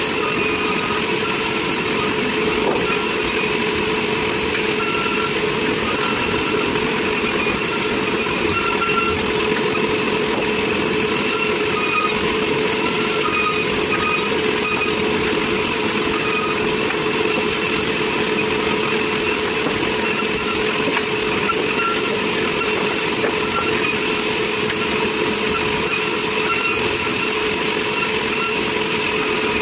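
Sawmill machinery running steadily: an unbroken engine-like hum with a constant whine and no distinct cuts or impacts.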